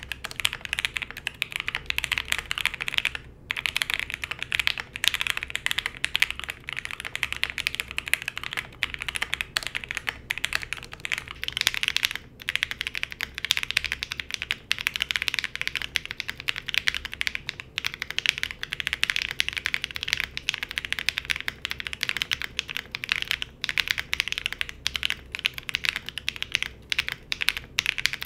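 Fast typing on a KBDFans Tofu65 2.0 SE custom mechanical keyboard with an FR4 plate and PBT Cherry-profile keycaps: a dense run of keystroke clacks with brief breaks. It starts on stock Gateron Oil King switches with all foams installed. After a short break about eleven to twelve seconds in, it continues on lubed NK Cream switches with switch foam only.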